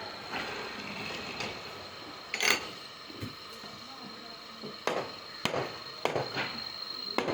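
Sawmill work sounds: several sharp knocks and clatter over a steady high whine.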